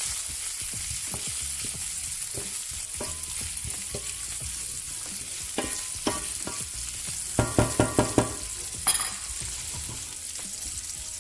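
Bacon sizzling steadily in hot olive oil in a frying pan, with scattered knocks and a quick cluster of clatters about two-thirds of the way through.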